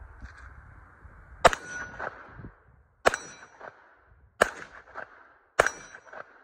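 Springfield XDM 9mm pistol firing four single shots at an unhurried pace, about 1.2 to 1.6 seconds apart. About half a second after each shot comes a fainter ringing clang, the sound of a steel target being hit.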